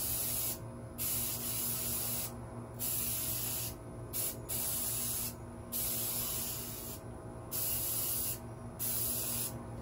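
Aerosol spray-paint can spraying in short repeated bursts, about eight hisses of half a second to a second and a half with brief pauses between them, as a first coat goes onto a ceramic vase.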